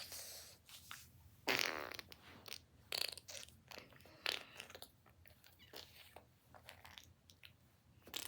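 A person snoring: one loud rattling snore about a second and a half in, followed by fainter, shorter snorts and breaths.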